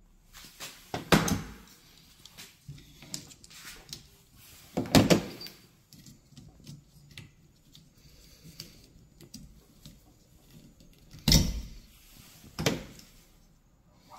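Handling noises from a car's rear wiper blade and its packaging: a few sharp plastic knocks and clicks with lighter rustling between. The loudest knocks come about a second in, near five seconds, and twice more near the end.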